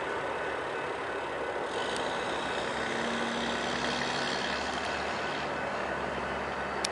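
Steady low rumble of a diesel freight train approaching from a distance, mixed with passing road traffic.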